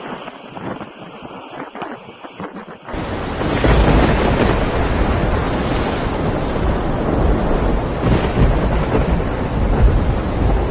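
Storm noise: for about three seconds a quieter rushing with small patters, then it jumps suddenly to loud, heavy wind buffeting the microphone with a deep rumble, mixed with rain.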